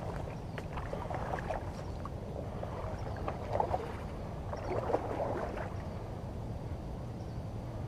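Steady low rumble of river water and wind on the camera microphone, with scattered short crackles and clicks, the loudest about three and a half and five seconds in.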